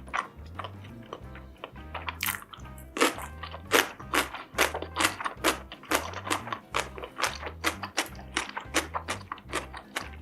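Crunchy biting and chewing of food, close to the microphone: a quick irregular run of sharp crunches, thicker from about two seconds in. Background music with a steady low beat plays underneath.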